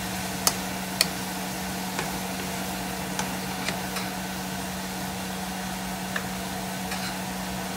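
A wooden spatula knocks and scrapes irregularly against a nonstick wok while stirring vegetables frying in oil, the two loudest knocks about half a second and a second in. Under the knocks are a steady sizzle and a constant low hum.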